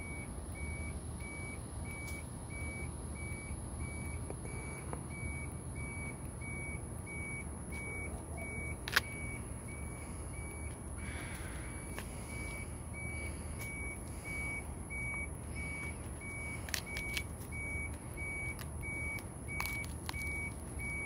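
Truck's backup alarm beeping steadily at one pitch and an even rate over a low engine rumble, with a few short clicks, the sharpest about nine seconds in.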